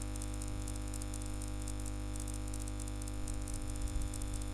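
Steady electrical hum and hiss with fine crackle, with a few soft low bumps near the end.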